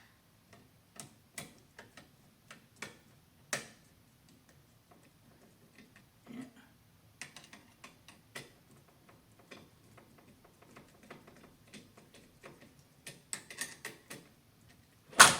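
Scattered small clicks and taps of plastic and metal curtain-track parts being handled and snapped together, with a sharp, louder click just before the end.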